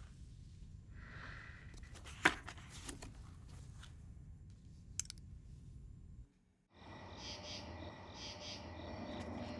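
A few soft rustles and sharp clicks of a paper folder being handled in a quiet room, one click louder than the rest. After a brief drop-out about six and a half seconds in, insects chirping steadily take over.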